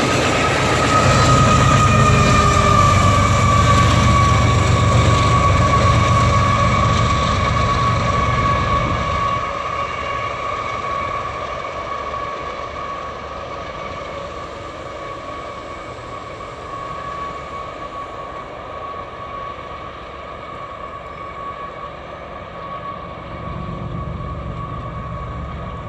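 Freight train rolling past with a heavy low rumble that fades after about nine seconds. Over it, a steady high-pitched squeal from the train runs throughout.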